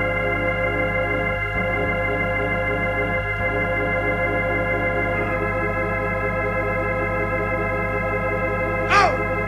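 Organ holding one long sustained chord, with a slight change in the chord about halfway through. A short bright flare of sound breaks in near the end.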